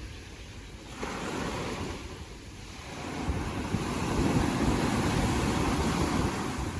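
Ocean waves washing onto the shore, a wave swelling about halfway through and staying loud until near the end, with wind rumbling on the microphone.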